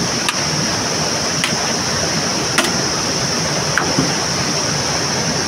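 Rushing stream water, a steady hiss, with four sharp knocks about a second apart.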